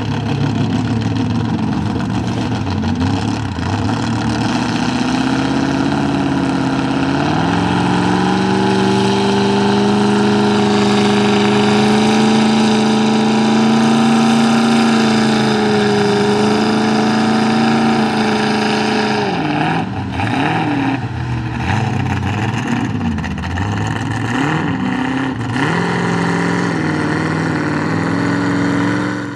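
Two-wheel-drive Chevy Silverado mud truck's engine revving under load as its big tyres spin in the mud. The engine runs steadily at first, climbs and is held at high revs for about ten seconds, then drops and is blipped up and down.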